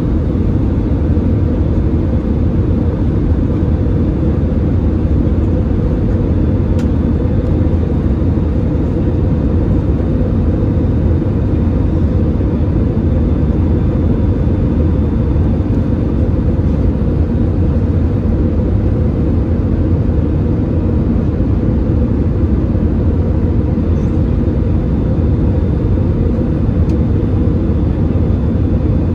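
Steady cabin roar of an Airbus A320-216 in descent on approach to landing, heard from a seat by the wing: the CFM56-5B engines and the rush of air over the fuselage make a deep, even noise that does not change, with a faint high tone above it.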